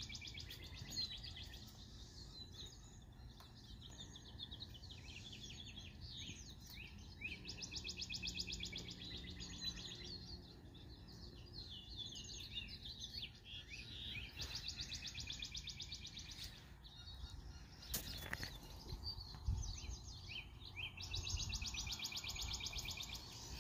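Small songbirds chirping, with fast high trills coming in repeated bouts of a second or two. A low thump comes late on.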